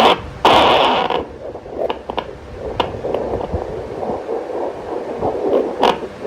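Fetal Doppler sounding out a twin pregnancy at about five months: whooshing static and scrapes as the probe is moved over the belly in search of the babies' heartbeats, with the loudest scrape about half a second in.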